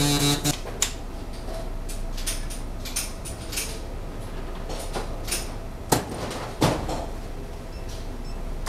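A steady machine buzz cuts off about half a second in. Then come scattered clicks and knocks of metal and plastic being handled as a pistol is set into the fixture of a serial-number engraving machine and its guard is closed.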